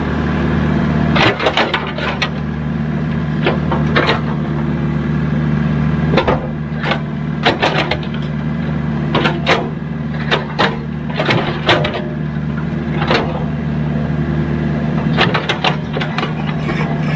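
Excavator's diesel engine running steadily, with irregular sharp knocks and clanks over it through the whole stretch.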